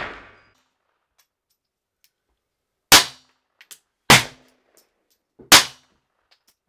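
Hammerli X-Esse Sport .22 LR semi-automatic pistol fired three times, just over a second apart. Each is a sharp crack with a short ringing tail. The tail of a shot fired just before also fades out at the start.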